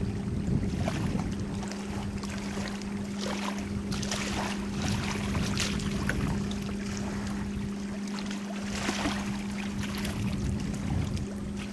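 Small lake waves lapping and splashing in shallow water, with scattered soft splashes over a steady low hum and some wind rumble on the microphone.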